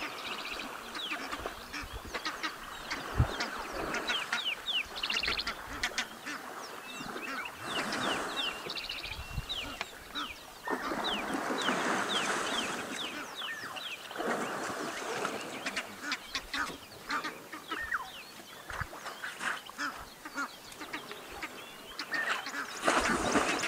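Two African elephants splashing and wrestling in a waterhole, the water rushing in several bursts, loudest about eleven to thirteen seconds in. Birds call throughout in quick, high, falling chirps.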